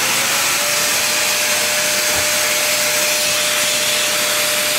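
Vacuum dust extractor running at full speed, pulling air through its hose and the holes of a sander's pad: a steady rush of air with a constant motor whine. The suction is working properly.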